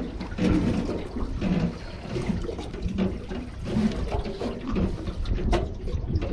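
Water sloshing and lapping against the hull of a small fishing boat, coming in uneven surges, with a low wind rumble and a sharp knock about five and a half seconds in.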